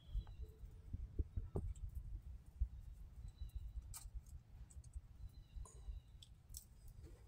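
Eastern gray squirrel eating on a wooden rail: faint, irregular clicks of its teeth gnawing food, over a low steady rumble.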